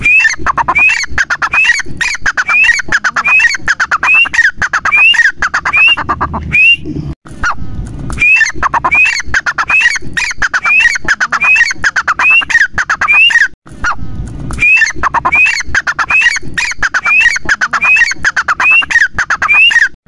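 Grey francolin (teetar) calling loudly: a harsh, ringing call note repeated about twice a second in long series, broken by short pauses about seven and thirteen seconds in.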